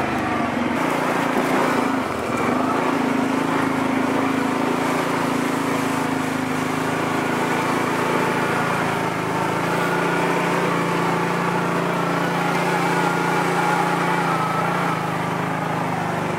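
Kawasaki Prairie 700 ATV's V-twin engine running steadily while the quad is ridden at low speed, its pitch shifting slightly a few times as the throttle changes.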